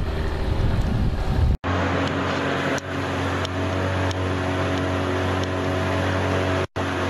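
Wind buffeting the microphone for about a second and a half. Then an outboard motor runs at a steady pitch, pushing a small pontoon floathouse, heard from inside its cabin with water rushing from the wake. Two brief dropouts break the sound.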